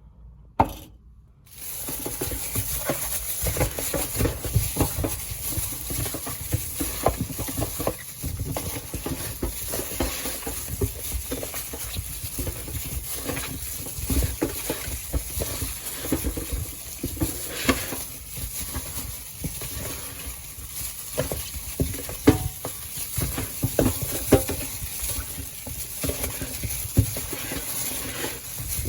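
Food being stirred and mixed wet, as when kimchi seasoning is worked into green onions: an irregular run of small wet clicks and crackles. It sets in after a brief knock about a second and a half in.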